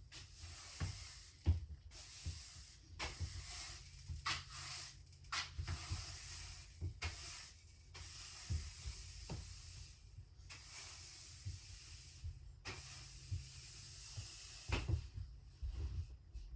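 Broom sweeping a floor: repeated stretches of bristle swishing, with short pauses between strokes and scattered light knocks.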